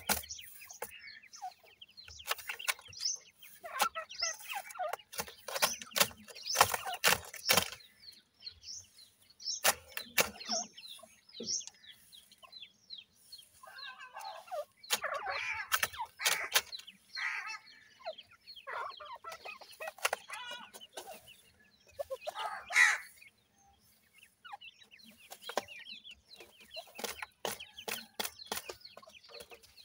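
Grey francolin chicks giving soft clucking and chirping calls, in clusters that are loudest around the middle and about three quarters in. Frequent sharp clicks and rustles come from the birds pecking and scratching among dry dirt clods.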